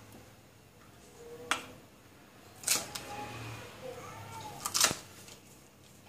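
Kitchen knife chopping through green stalks onto a wooden chopping board: a few sharp, separate chops at irregular intervals, the loudest about halfway through and near the end.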